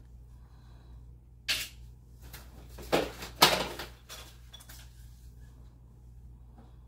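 A red plastic basket and its contents clattering as it is picked up and handled: three sharp clatters in the middle, the last the loudest.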